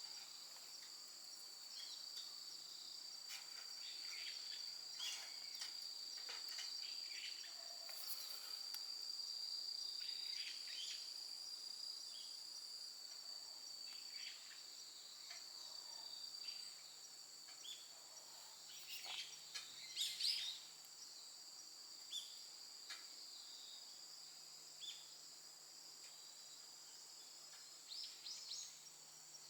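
Faint, steady chorus of insects trilling in two continuous high tones, with scattered small clicks and occasional bird chirps, the loudest cluster about two-thirds of the way through.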